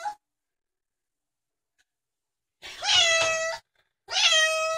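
Domestic cat meowing twice, two drawn-out meows starting about two and a half seconds in, each bending up briefly and then holding a steady pitch: a freshly bathed, wet cat crying from inside the bathtub.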